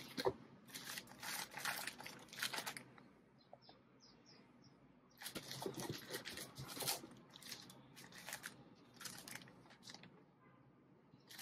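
Plastic bags of yarn crinkling and rustling as they are handled in a cardboard box, in two spells with a pause of about two seconds between them.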